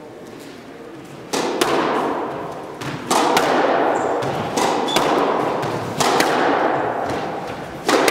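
Squash rally: a squash ball struck by rackets and smacking off the court walls. There are about nine sharp hits, mostly in quick pairs, starting a little over a second in, each echoing in the hard-walled court.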